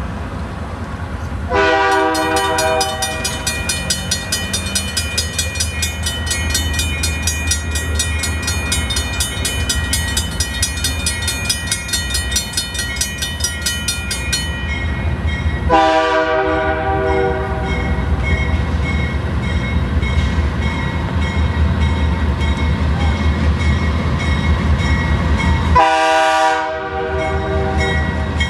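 Grade-crossing bell ringing fast and steadily, stopping about halfway through, while an approaching diesel freight locomotive sounds its multi-tone air horn three times: a short blast near the start, a longer one just past the middle, and another near the end. The locomotive's engine rumbles steadily underneath.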